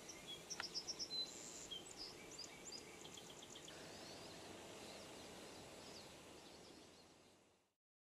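Small songbirds calling in a quick series of high chips and short whistles during the first few seconds, with fainter calls after; a single sharp click about half a second in. The sound fades out near the end.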